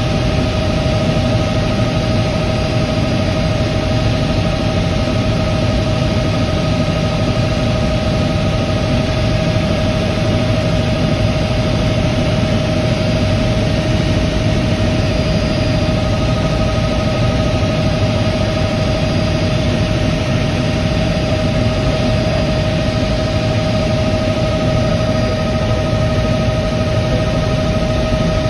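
Turbine helicopter in cruise flight, heard from inside the cabin: a steady rumble of engine and rotor with a constant whine over it.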